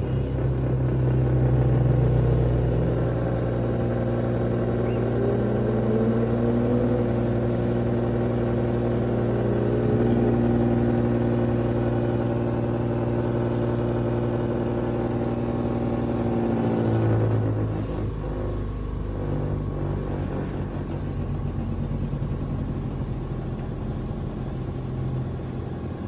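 Daikin ductless mini-split outdoor unit running, its inverter compressor giving a steady hum made of several tones, a couple of which rise slightly in pitch about five seconds in; the sound changes about 17 seconds in. This is the loud noise the customer complained of, which the technician puts down to a faulty compressor.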